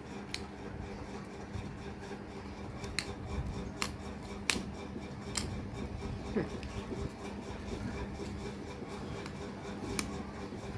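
Jigsaw puzzle pieces being handled and pushed around on a surface: rubbing and scraping with about half a dozen light clicks and taps. A steady low hum sits underneath.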